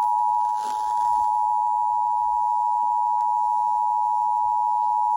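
Emergency Alert System attention signal: a steady two-tone alarm, 853 and 960 Hz sounded together, held unbroken at an even level. It announces that an emergency alert message follows, here a severe thunderstorm warning.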